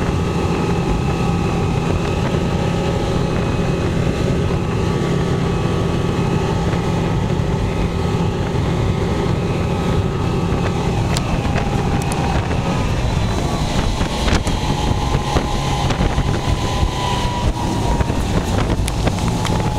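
Honda 200 hp four-stroke V6 outboard running steadily under way, held between 4,000 and 5,000 rpm. Wind on the microphone, with occasional sharp knocks in the second half.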